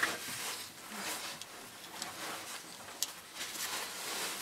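Rustling and scraping of a caver's suit and gear against rock while squeezing through a narrow shaft, with a few sharp clicks, the clearest about three seconds in.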